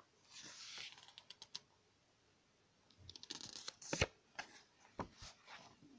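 Paper rustling, then a run of light clicks and taps from handling the pages of an album photobook, with one sharper knock about four seconds in and a couple of dull thuds after it.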